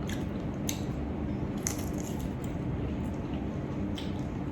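Eating chicken feet: quiet chewing with a few short clicks over a steady low hum.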